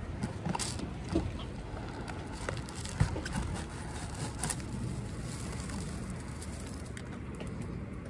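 Dry twigs and grass of a bird nest scratching and crackling as a gloved hand pulls it out of a plastic dryer vent hood. Scattered clicks run through it, with a sharper knock about three seconds in, over a steady low rumble.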